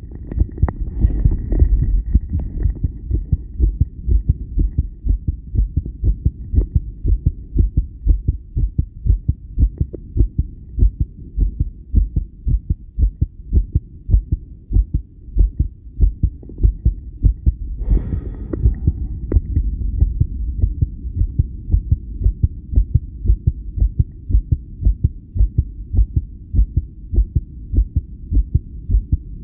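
A human heartbeat picked up through a homemade electronic stethoscope: strong, mostly steady, evenly repeating thumps, with a breath heard about a second in and again about eighteen seconds in.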